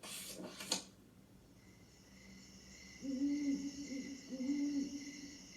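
An owl hooting a string of low hoots, starting about halfway in, over a steady high chirring of crickets that sets in after a second or so. A short swish is heard right at the start.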